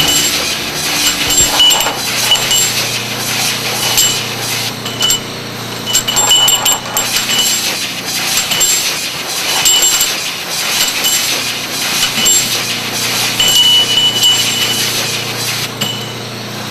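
Takeda TS-510 pipe deburring machine running: brushes scrubbing the ends of short cut steel pipes as a conveyor carries them through, over a steady machine hum. Short metallic clinks from the pipes come again and again at irregular intervals.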